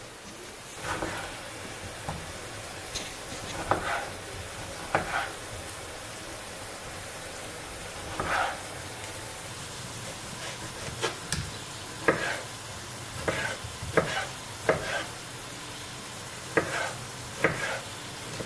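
Kitchen knife slicing and dicing tomatoes on a wooden cutting board: irregular sharp knocks of the blade hitting the board, more frequent in the second half, over a steady hiss.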